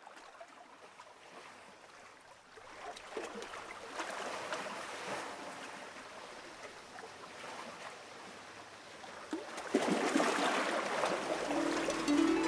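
Steady, hissing background noise with no clear source and a few faint clicks, rising in level about ten seconds in.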